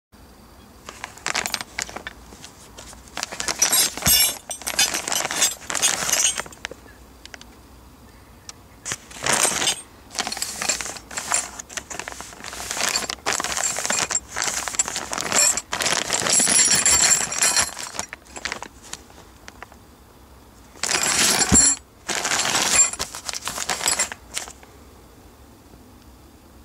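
New steel exhaust support brackets in plastic bags being handled: the packaging crinkles in irregular bursts and the metal parts clink against each other.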